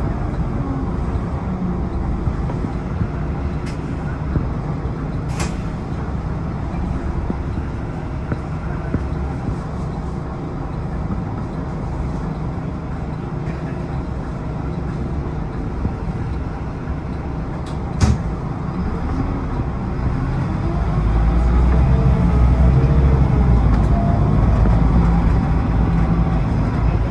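Bus engine and road noise heard inside the bus as it moves through slow traffic, with a few sharp clicks or rattles. The low rumble grows louder near the end.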